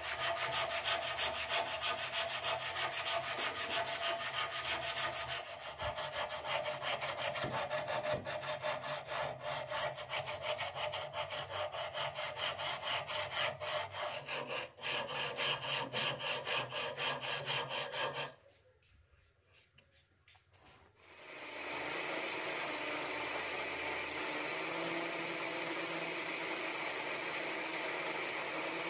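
Homemade bow sander, a strip of aluminium oxide sandpaper in a bow frame, rubbed back and forth in rapid strokes over a curved wooden workpiece. After a short quiet gap about eighteen seconds in, an electric drill driving a small wood lathe runs steadily.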